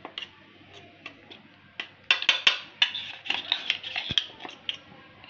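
Fingers scraping rice flour out of a stainless steel bowl onto a cloth-lined idli plate: a few scattered scratches and clinks, then a dense run of quick scratchy scrapes from about two seconds in.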